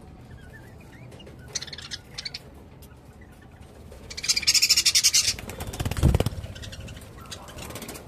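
Budgerigars calling: a few short chirps, then about four seconds in a loud, harsh burst of rapid chattering calls lasting about a second. A low thump follows shortly after.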